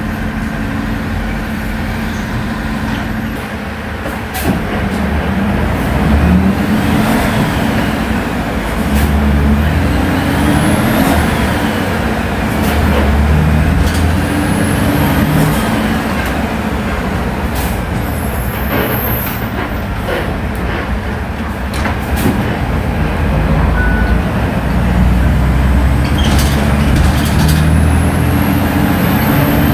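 Engine of a Volksbus 17-230 OD natural-gas city bus running under way, pulling harder and easing off again and again, with a whine that rises and falls in pitch. A short hiss of air about two-thirds of the way through.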